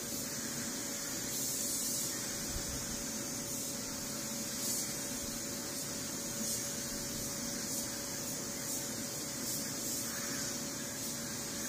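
Compressed-air gravity-feed spray gun hissing steadily as it sprays paint onto a car body, over a steady faint hum.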